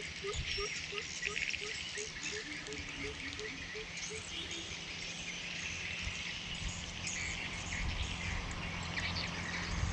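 Greater coucal calling: a long series of deep, evenly spaced hoots, about three a second, that stops a little after six seconds in, with a second, lower series overlapping briefly around two to three seconds in. Insects trill steadily behind.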